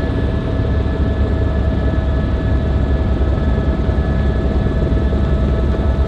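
Helicopter in flight heard from inside the cabin: a steady engine whine over a dense, fast-pulsing low rotor noise.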